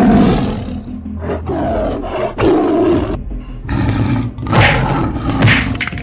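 Dinosaur roars: a run of about five loud roars, one after another with short breaks between them.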